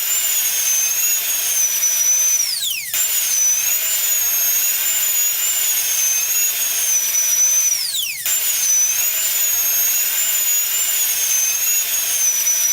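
Dentist's high-speed drill whining at a very high, slightly wavering pitch. It winds down with a falling pitch twice, then restarts at full speed each time.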